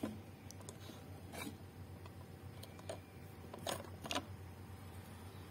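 A few faint clicks and taps of hands handling a circuit board, with the plastic power plug pushed onto the board's connector near the end, over a faint steady hum.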